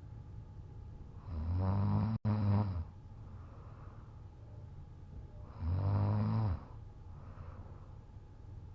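A man snoring loudly while passed out drunk: two long, buzzing snores about four seconds apart, with quieter breathing between.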